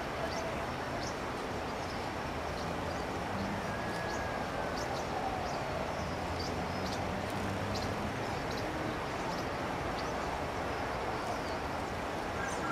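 Small birds giving short, high chip calls about once a second, with one faint whistled note a few seconds in, over a steady low rumble.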